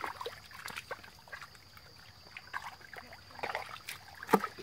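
Hands sloshing and squelching through shallow muddy water, with small irregular splashes and drips. About four seconds in comes one sharper, louder splash.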